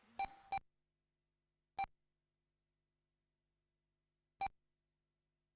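Four short, same-pitched electronic beeps from an RC race lap-timing system: a quick pair, then one about two seconds in and another near the end. Each beep is typical of a car being counted as it crosses the timing line.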